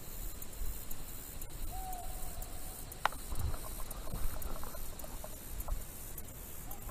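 Hunting hounds baying in the distance: one long drawn-out bay, then short broken calls. A single sharp click comes about three seconds in, as the shotgun is being handled and raised.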